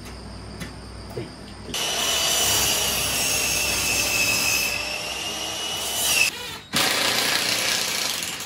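Cordless drill driving screws into a pine wood frame, running for about four and a half seconds from about two seconds in, then again after a brief pause, with a steady whine over the noise of the screw biting into the wood.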